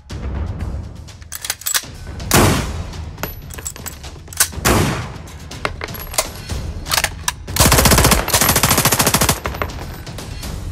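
A sequence of firearm sound effects: scattered single gunshots and sharp clicks of weapon mechanisms, with a long burst of rapid automatic fire lasting nearly two seconds about three-quarters of the way in.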